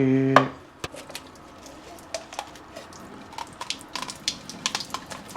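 Scattered light clicks and taps of a freshly split coconut's shell halves being handled, with a little dripping of coconut water.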